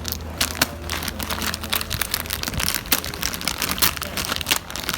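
Roasted pistachios in their shells being handled, with a dense run of irregular clicks and crackles as the shells knock together. A low hum underneath stops about two seconds in.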